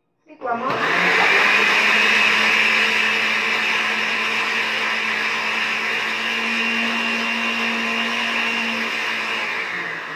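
Countertop electric blender spinning up about half a second in and running steadily, blending evaporated and condensed milk with lemon juice. Its motor starts to wind down near the end.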